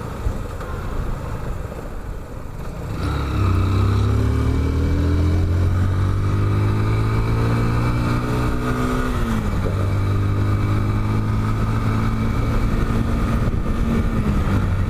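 Motorcycle engine under way, accelerating with its pitch climbing for several seconds, dropping sharply about nine seconds in, then running at a steady pitch.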